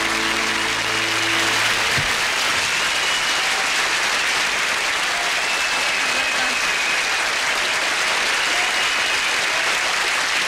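Studio audience applauding steadily after a song, while the band's final sustained chord fades out in the first second and a half.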